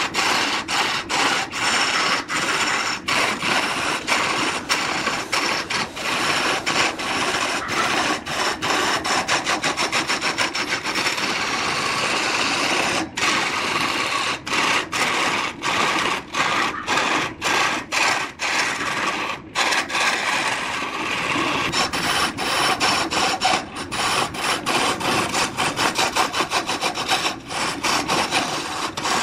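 A turning tool cutting an areca root blank spinning on a wood lathe: a continuous scraping hiss of shavings peeling off the wood, broken by many brief gaps.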